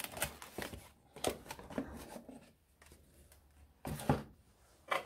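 Hands handling a cardboard box and its fitted cardboard insert, with scattered rustling, scraping and light clicks as a plastic handheld thermometer is lifted out. There is a short, louder knock about four seconds in and another near the end.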